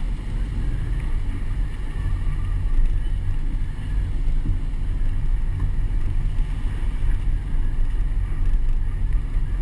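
Steady low wind noise on the microphone of a camera mounted outside a slowly moving vehicle, mixed with the vehicle's engine and road noise.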